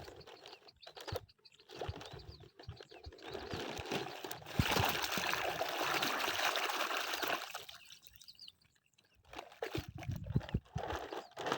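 Water splashing and pouring for about three seconds in the middle, with scattered knocks and handling clicks before and after.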